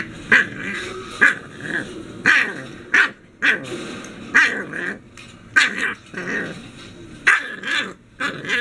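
English bulldog puppy barking in about a dozen short, sharp yaps, roughly one a second, with growling in between: a puppy protesting at being shut behind a baby gate.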